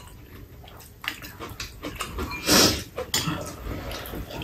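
Eating sounds: chewing and slurping stir-fried kimchi glass noodles, with light clicks of chopsticks and spoons against ceramic bowls. One louder slurp comes about two and a half seconds in.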